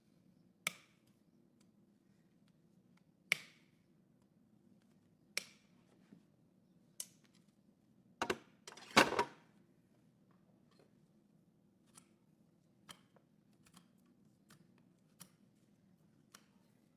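Hoof nippers cutting through overgrown horse hoof wall, each bite a sharp crack. A crack comes every couple of seconds, the loudest a close double crack about nine seconds in, and fainter clicks follow later.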